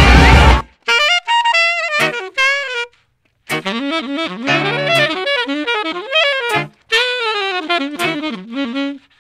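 Instrumental music: the full band texture drops out about half a second in, leaving an unaccompanied melodic lead line with sliding, bending notes. It pauses briefly about three seconds in, then resumes with lower notes joining underneath.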